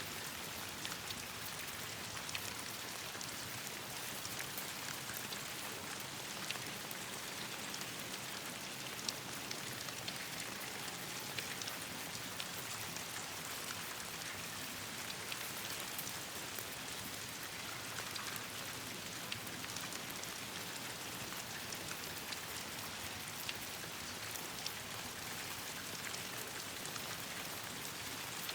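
Steady rain falling on leaves and branches, an even hiss with scattered sharp ticks throughout.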